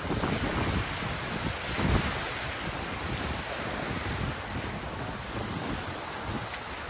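Small waves breaking and washing over a rocky, sandy shoreline, with gusty wind buffeting the microphone; a stronger gust comes about two seconds in.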